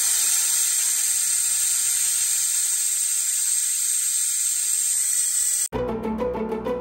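Vacuum brake bleeder hissing steadily as it pulls a vacuum on a drum-brake wheel cylinder through its bleeder screw, with no fluid coming through because the brake hose is clogged. The hiss cuts off abruptly near the end and plucked guitar music starts.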